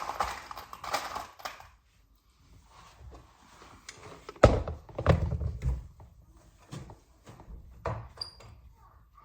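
Handling noises of fitting a large hinge to a wooden door: rustling at first, then scattered knocks and clicks, with a heavy thump about four and a half seconds in.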